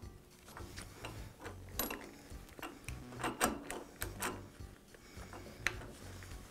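Irregular metal clicks and clacks from a drill press's quill return coil spring housing as it is turned by hand with a screwdriver to add tension to the spring.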